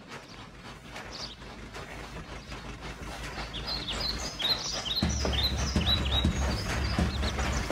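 Small steam locomotive chuffing as it approaches, a steady run of knocks growing louder, with birds chirping over it. A low rumble comes in about five seconds in.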